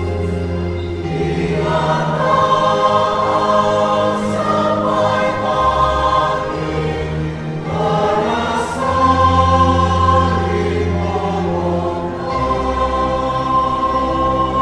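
Church choir singing a Lenten hymn in long held notes, over a steady low bass accompaniment that changes pitch every few seconds.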